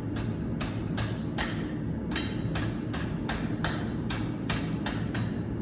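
Steady hammer blows on hot steel, about two or three strikes a second, over the constant rush of a propane forge.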